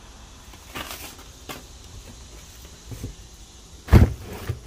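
Firework cake boxes being handled and set down: a few light knocks, then a heavy thump about four seconds in and a smaller knock just after.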